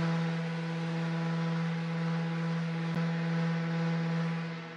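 Festool random orbital sander running steadily on solid oak with 150-grit paper: a steady motor hum with a hiss of abrasion, easing slightly near the end.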